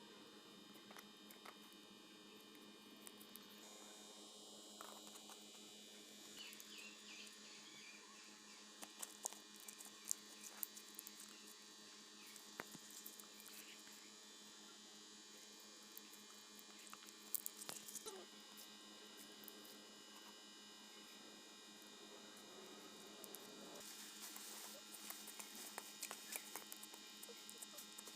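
Faint sticky clicks and crackles of slime being kneaded by hand, coming in a few short clusters over a steady electrical hum.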